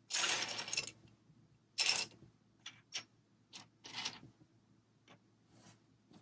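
Plastic LEGO pieces being handled during assembly: a short rattle of pieces at the start and another about two seconds in, then a series of short sharp plastic clicks.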